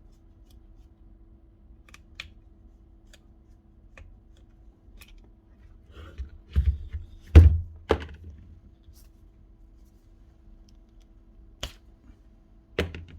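Hands working on a disassembled electric drill on a workbench: scattered small clicks, then a cluster of sharp knocks and thunks about six to eight seconds in, and two more single knocks near the end, against a faint steady hum.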